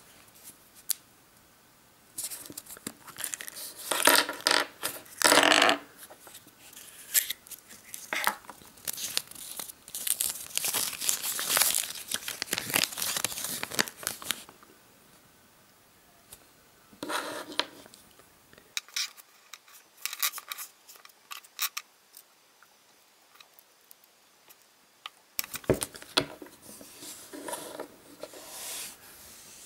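Crinkling and rustling of a small paper instruction leaflet, along with the light clicks and scrapes of little plastic surprise-egg toy parts being handled and fitted together. The sounds come in irregular bursts with quiet pauses between them, and the longest run of crinkling falls in the first half.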